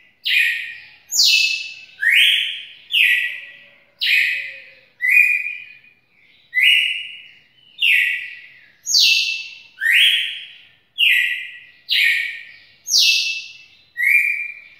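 Red-cowled cardinal (galo-campina) singing: a series of loud separate notes, roughly one a second, switching between lower and higher pitches, with a brief pause about six seconds in.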